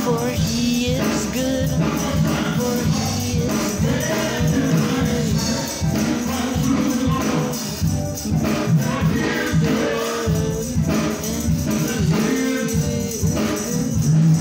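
Gospel music: a choir singing with a tambourine shaking along.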